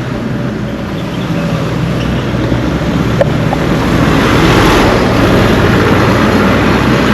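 Road traffic: a motor vehicle running past on the paved road, with engine hum under tyre and road noise that swells to a peak about four to five seconds in.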